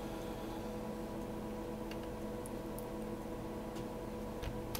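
Quiet room tone: a steady electrical hum with several fixed pitches, broken by a few faint ticks, one near the end.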